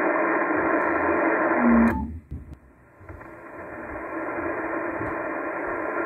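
HF transceiver's receive audio on the 80-metre band: a steady hiss of band noise that drops away sharply about two seconds in, as the set is switched between antennas, then slowly builds back up.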